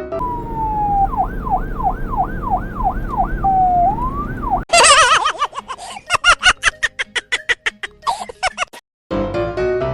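Electronic police siren sound: a falling wail, then a fast up-and-down yelp at about three to four sweeps a second over a low rumble. About halfway through it cuts to a harsher, rapidly pulsing siren tone that stops suddenly near the end, before music comes in.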